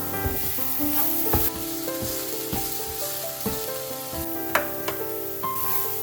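Food sizzling in a frying pan, with sharp knocks and scrapes of a utensil stirring it, over background piano music.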